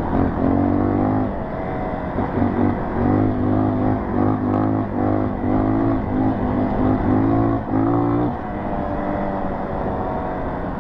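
Dirt bike engine revving in short bursts, the throttle opening and closing about twice a second over rough trail. After about eight seconds it settles to steadier, lower running.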